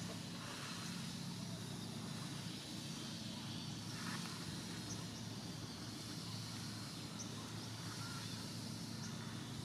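Steady outdoor background: a constant low hum under an even hiss, with a few faint, short high ticks scattered through.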